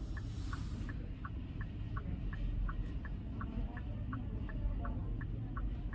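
A car's turn-signal or hazard flasher ticking evenly, about three ticks a second, over a low steady rumble inside the car.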